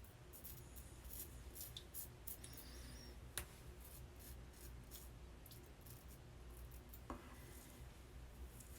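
Faint, crisp scraping strokes of a Rockwell 2C safety razor cutting stubble through lather, many short strokes in quick succession, with a sharper click a few seconds in.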